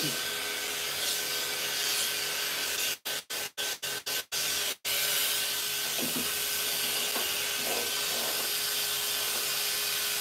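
Steady rush of air and motor hum from a hose-fed pet grooming machine, with the sound cutting out briefly several times in quick succession about three to five seconds in.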